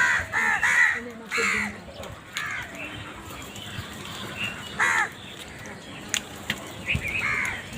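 Crow cawing: a quick run of harsh caws in the first two seconds, then single caws about five seconds in and near the end.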